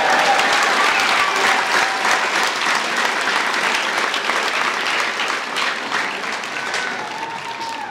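Crowd applauding with many hands clapping, slowly dying down toward the end.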